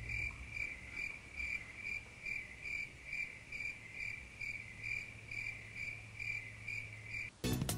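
Cricket chirping sound effect: a steady rhythm of about two high chirps a second over a faint low hum, cutting off suddenly near the end. It is the comedy 'awkward silence' cue.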